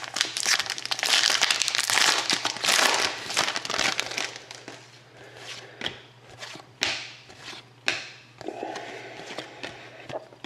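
Foil trading-card pack wrapper crinkling as packs are opened and handled: dense crinkling for the first few seconds, then lighter rustling with a few sharp clicks.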